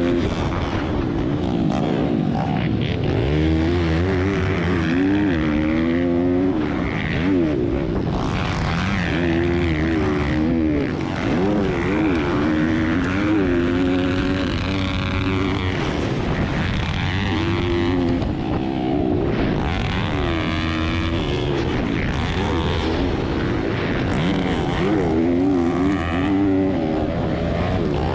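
Racing pit bike engines, among them a Piranha P190, revving up and falling back over and over as the riders open and close the throttle and shift.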